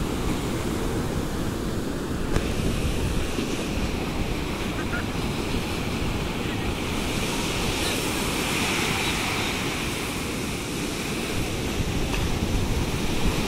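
Ocean surf breaking and washing up a sandy beach in a steady wash, with wind buffeting the microphone.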